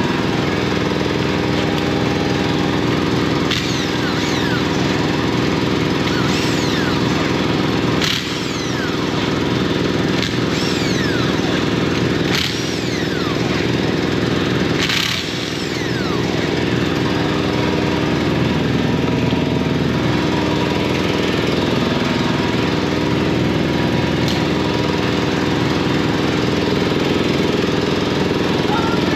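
Air compressor running steadily, a continuous motor drone, with a few short knocks.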